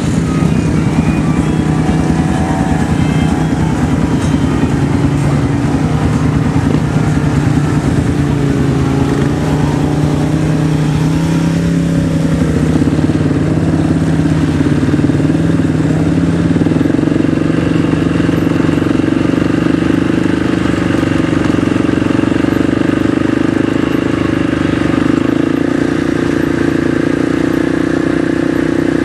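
Off-road vehicle engine running steadily under load, its note shifting up and down a little as the throttle changes.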